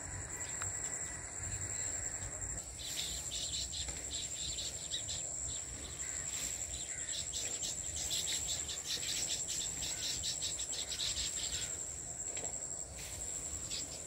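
Insects trilling steadily at a high pitch. About three seconds in, a bout of rapid, high chirping begins and comes and goes over it.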